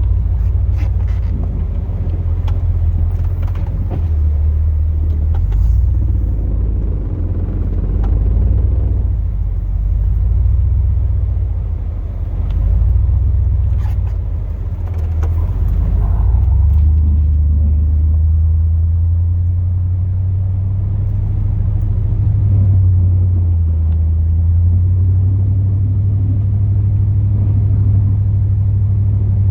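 Low, steady rumble of the 2002 Chevrolet Silverado's 8.1-litre big-block V8 gas engine and drivetrain while the truck drives, its pitch and loudness shifting slowly with speed.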